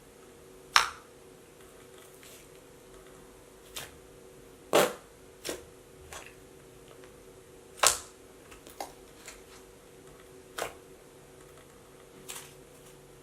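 Thick, glossy white 'cow cream' slime being pressed and poked, giving off sharp clicks and pops at irregular intervals. The loudest come about a second in, about five seconds in and about eight seconds in, with softer ones between.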